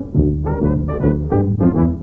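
Brass-led music, a run of short notes, playing from an old story cassette in a slide projector's tape deck.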